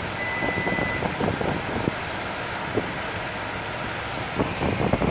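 A single electronic beep, one steady tone under a second long, from a 2016 Toyota Sienna as its power liftgate and sliding door are set closing. A steady hum fills the minivan's cabin after it.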